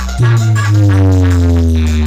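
Electronic dance remix with heavy bass played loud through a newly set-up DJ sound-box system on test. A deep bass note comes in about a quarter second in, under a synth tone that glides slowly downward.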